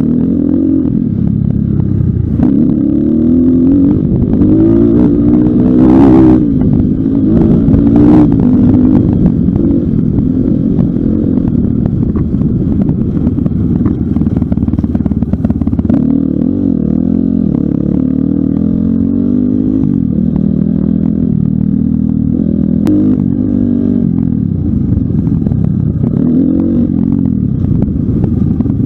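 Pitster Pro LXR250f dirt bike's 250cc four-stroke engine revving up and down over and over as it is ridden hard, its pitch rising and falling with throttle and gear changes. Two sharp knocks about six and eight seconds in.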